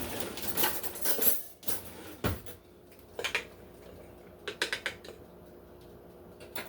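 Kitchen utensil scraping and clinking against dishes while garlic is added to a salad. A sharp knock comes about two seconds in, and short runs of quick clinks follow around three and four and a half seconds.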